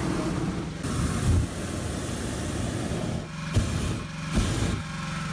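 Hot air balloon's propane burner firing in blasts of hissing roar: one long blast of about two and a half seconds, then two short blasts near the end. A steady engine hum runs underneath.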